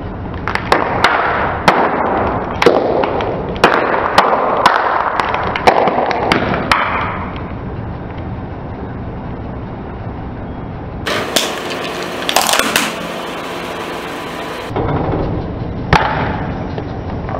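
Car tyre rolling over a row of small sealed plastic packets, which burst one after another with sharp pops and crackles. A second stretch of crackling comes about eleven seconds in. Near the end there is a single sharp knock as the tyre tips over a plastic tub.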